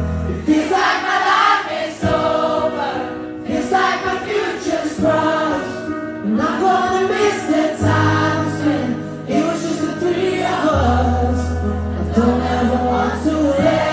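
Background music: a song with sung vocals over long held bass notes.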